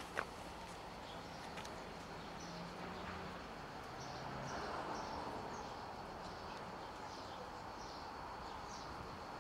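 Outdoor ambience with a small bird chirping repeatedly, short high chirps about one or two a second, over a steady background hiss. A single sharp click comes just after the start.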